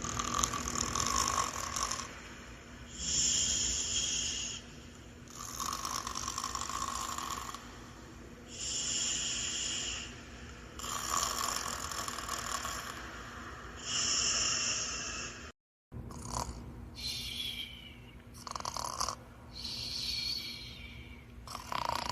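Animated characters snoring: slow, regular snores of about two seconds each, alternating a lower snore with a higher whistling one. After a brief cut to silence about two-thirds of the way through, the snores come quicker with short falling whistles.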